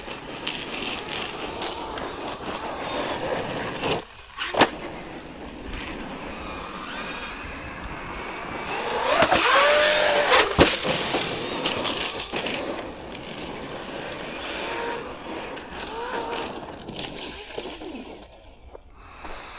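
Traxxas Maxx V2 RC monster truck, its brushless motor driven by a 6S VXL ESC on a 4S battery, running on dirt and gravel: motor and gear whine rising and falling in pitch as it speeds up and slows, over tyre and gravel noise, with a few sharp knocks. The loudest burst of speed comes about halfway through.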